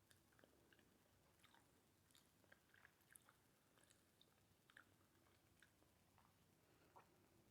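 Faint chewing: scattered soft mouth clicks and small crunches of a person eating a taco close to the microphone.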